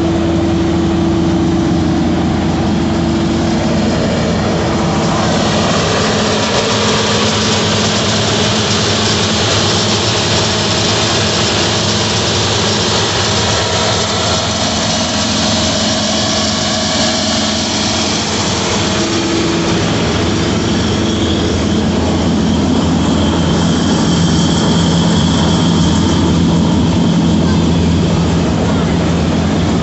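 New Holland TC5.30 combine harvester running its threshing works: the threshing drum, belts and pulleys turning over a steady engine drone with a constant hum, in a test run of the thresher. A rushing hiss grows louder about five seconds in and stays.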